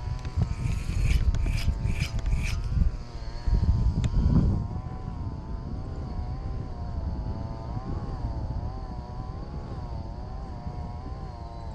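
An engine drones with a slowly wavering pitch. Heavy low rumble and a few short rubbing scrapes come over it in the first four or five seconds, then fade.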